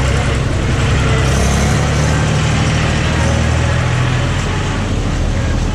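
Road traffic with a motor vehicle's engine running close by: a loud, steady low hum.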